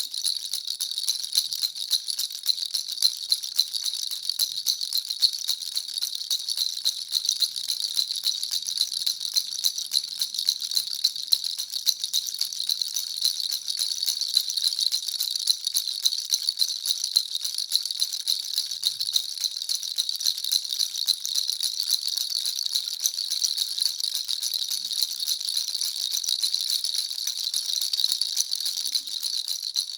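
Baby rattle (jhunjhuna) shaken steadily without pause: a dense, even stream of small high-pitched rattling clicks and jingles.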